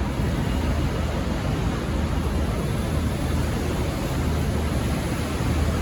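V/Line VLocity diesel railcars running with a steady low rumble under an even hiss, no horn sounding.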